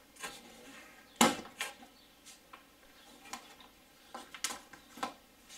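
A series of short plastic clicks and knocks from hands unclipping the mass airflow sensor's electrical connector and working the air intake in a VW VR6 engine bay, with one sharper knock about a second in.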